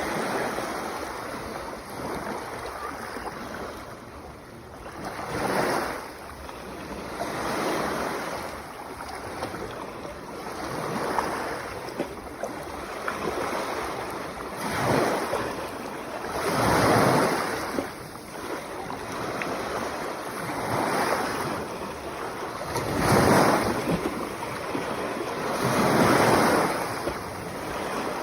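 Sea waves breaking and washing in, the surf rising and falling in swells every two to four seconds.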